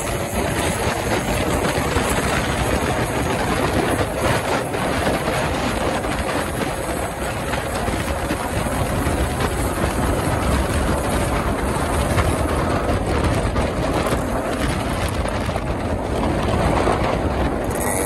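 Steady rush of wind over the microphone of a motorcycle riding at highway speed, with engine and road noise mixed into it.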